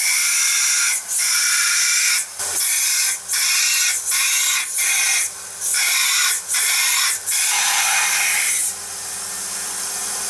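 A grinder grinding a hardened ball-bearing steel knife blade, a harsh hiss broken by short gaps each time the blade is lifted off. This is the grinding-out of quench cracks along the edge, narrowing the blade. Near the end the grinding stops and a steadier, quieter running sound is left.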